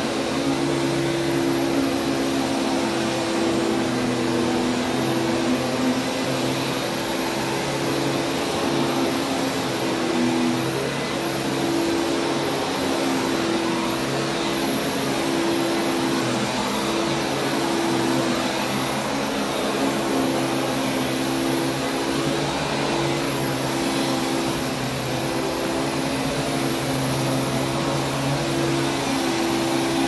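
Upright vacuum cleaner running steadily as it is pushed back and forth across carpet, its motor hum holding an even pitch.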